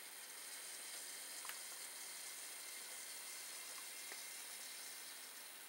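DCC-fitted Sentinel four-wheel model locomotive running along the track, very smooth and quiet: a faint steady hiss of motor and wheels, with two faint clicks, about a second and a half and four seconds in.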